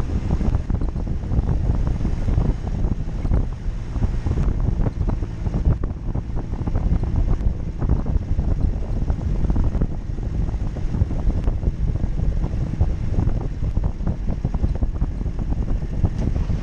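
Jeep Cherokee driving off-road: a loud, steady low rumble of engine and drivetrain, with many short knocks and rattles from the rough ground and wind buffeting the microphone.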